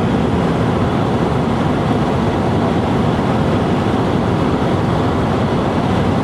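Steady road and wind noise inside a moving car at speed, a constant low rumble.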